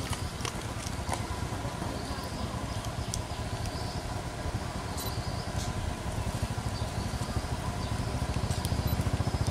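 A motor engine running steadily, a low pulsing rumble that grows louder near the end, with a few scattered sharp clicks.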